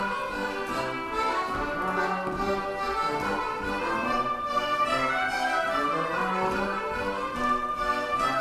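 Live folk dance tune led by a fiddle, played as accompaniment for Morris dancing, with a steady running melody.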